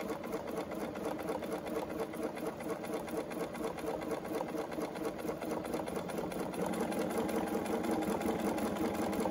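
Bernina B 770 Quilter's Edition sewing machine stitching steadily at speed during free-motion quilting, its needle running in a fast, even rhythm.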